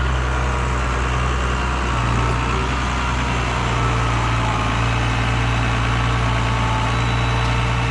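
A large farm vehicle's engine idling steadily at a low, even pitch.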